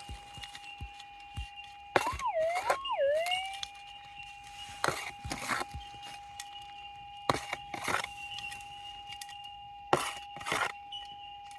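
Minelab GPX 6000 gold detector's steady threshold hum. About two seconds in it gives a target signal, the pitch warbling down and up twice over a buried piece of metal, which here turns out to be gold. A string of short scrapes and knocks runs through the second half as the ground is dug and scratched out.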